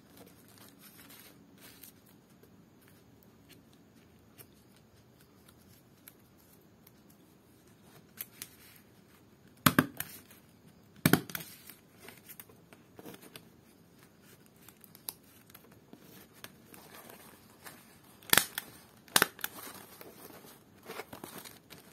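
Handheld stapler snapping shut four times, in two pairs about a second and a half apart, near the middle and again near the end, fastening palm-leaf pieces. Soft rustling of the leaf strips being handled in between.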